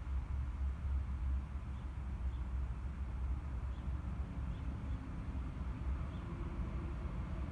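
A steady low rumble, with a few faint, short high chirps from small birds scattered through it.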